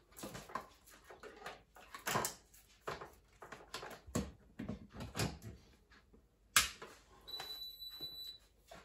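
Handling noise and light clicks as a plug and plug-in energy meter are fitted into a wall socket, then one sharp click about two-thirds through, followed by a steady high beep of about a second as the Cosori air fryer oven powers up.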